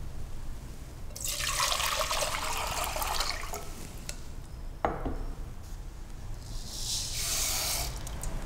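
Water poured from a glass bowl into a stainless-steel pot, splashing for about two seconds. A sharp knock comes near five seconds in, then a shorter, hissier pour of millet grains tipped into the water from a wooden bowl.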